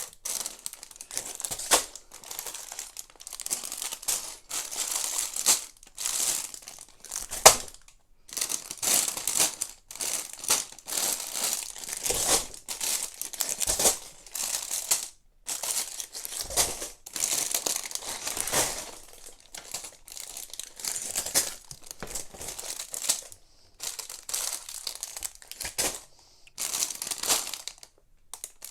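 Plastic parts bag of Lego pieces being crinkled and rummaged through, in irregular rustling bursts with a sharp click about seven and a half seconds in.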